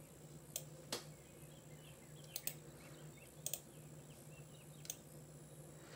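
Scattered sharp clicks of a computer mouse, some in quick pairs, over a faint steady hum.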